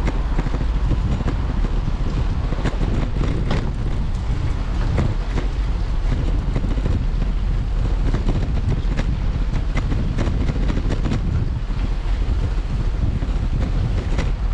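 Wind buffeting a bicycle-mounted action camera's microphone while the bike rolls over wet brick paving, with a dense low rumble and frequent small clicks and rattles throughout.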